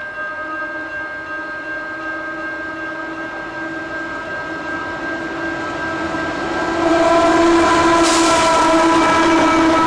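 Loaded grain train hauled by Aurizon diesel locomotives approaching, a steady low drone from the lead locomotive growing as it nears. The train gets much louder about seven seconds in as the lead locomotive passes close by.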